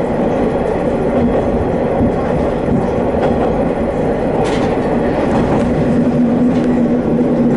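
Hi-Mo 330 diesel railcar running along the line: a steady diesel drone with the clack of wheels over rail joints. The engine tone grows stronger about six seconds in, and there is a brief high sound about four and a half seconds in.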